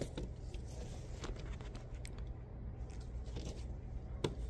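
Quiet indoor background: a steady low hum with a few faint, scattered clicks and rustles.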